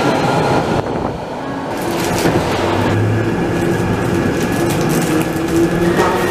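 London Underground Central line 1992 Stock train. It is heard first as it comes into the platform, then from inside a carriage running through the tunnel: a steady rumble under a motor whine.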